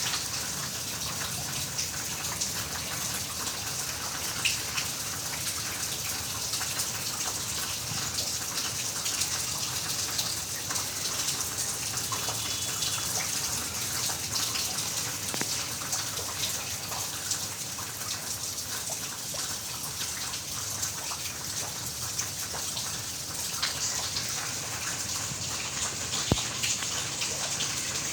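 Heavy rain falling steadily on a garden, a constant hiss made of many individual drop hits, with one sharp tick near the end.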